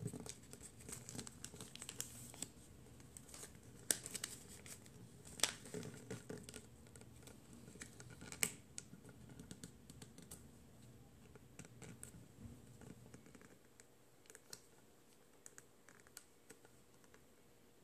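Origami paper being folded and creased by hand on a wooden table: faint crinkling with scattered sharp crackles, a few louder ones in the first half, growing quieter over the last few seconds.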